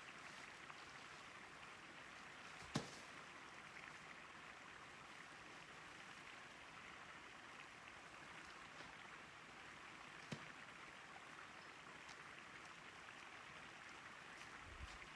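Near silence: a faint steady outdoor hiss, broken by two sharp knocks, one about three seconds in and one about ten seconds in.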